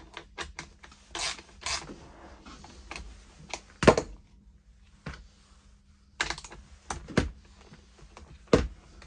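Irregular clicks, taps and short scrapes of hand tools and loose saw chain being handled on a Makita cordless chainsaw stripped down on the bench, with one louder knock about four seconds in.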